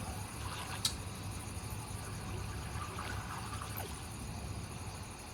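Quiet, steady low hum and hiss of a film's ambient soundtrack, with one sharp click about a second in.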